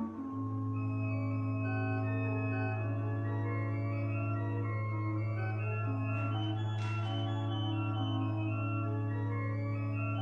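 Background organ music: slow sustained chords over a held low bass note.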